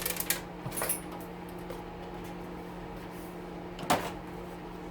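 Steady hum of a wood stove's fan, with a few light clicks in the first second and one sharp knock about four seconds in from parts being handled during the teardown of a steamer oven.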